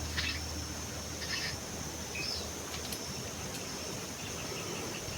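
Dry-scrub ambience: a steady high-pitched insect drone with a few short bird chirps in the first half, and a low wind rumble on the microphone that dies away about halfway through.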